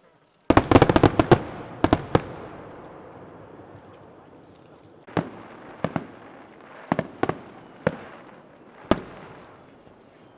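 Aerial fireworks bursting: a rapid volley of about a dozen sharp bangs about half a second in. Scattered single bangs follow roughly every second, each trailing off in an echo.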